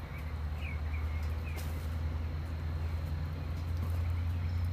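Portable sawmill's engine running steadily with a low hum, while birds chirp several times in the first second and a half.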